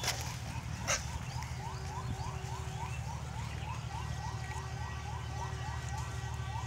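An electronic siren sounding a fast repeating rising whoop, about three sweeps a second, over a steady low rumble. Two sharp knocks come near the start.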